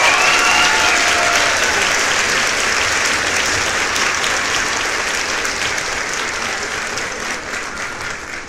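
Crowd applause, with a few cheers in the first second, slowly fading away.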